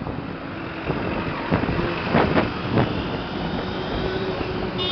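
Street traffic: vehicle and motorbike engines running in a steady mix, with a few short sharp sounds between about one and a half and three seconds in.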